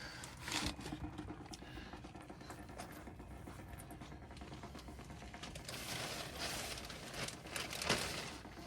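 Faint clicks and scraping from hands and tools working the loosened oil filter under the vehicle, with a louder stretch of scraping about six to eight seconds in.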